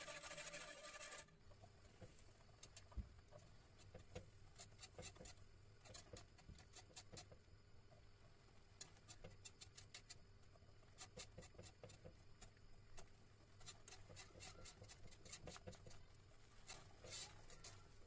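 A wire whisk scraping and clicking against the sides and bottom of a non-stick saucepan while custard is stirred continuously over medium heat, giving quick, irregular, faint ticks. Music stops about a second in.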